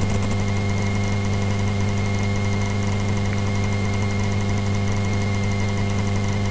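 Light single-engine aircraft's piston engine and propeller running steadily, a low drone that holds one even pitch with no rise or fall.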